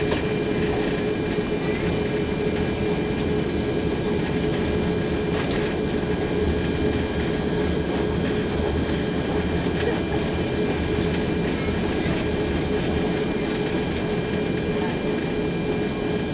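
Cabin noise of an Airbus A340-600 taxiing before takeoff: the steady hum of its four Rolls-Royce Trent 500 engines with a held tone and a low rumble, and a few faint knocks.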